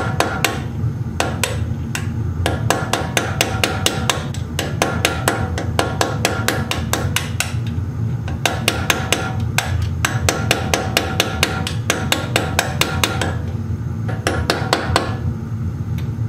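Rapid hammer taps on metal at a Brembo rear brake caliper, about six a second, in bursts of a few seconds with short pauses, each burst with a metallic ring: knocking loose the caliper's metal pad-retaining clips and pins to change the brake pads.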